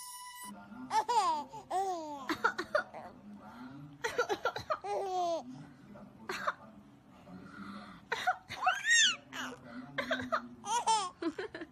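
Small child laughing in high-pitched bouts, about a second in, around four seconds and around eight seconds, with a woman coughing in between.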